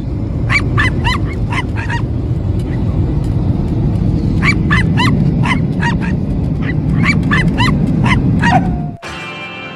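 Steady low roar of a jet airliner cabin in flight, with a small dog, a miniature schnauzer puppy, yapping in three quick bursts of about six short yaps each. The roar cuts off abruptly near the end.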